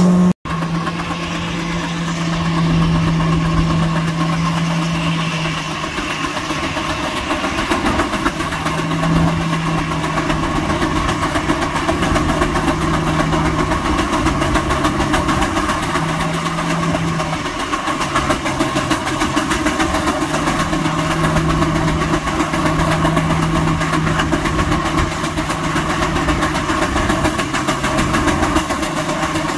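George White steam engine driving a belt-fed Waterous sawmill: a steady mechanical running sound with a low hum that dips in pitch and recovers several times. The sound breaks off for an instant about half a second in.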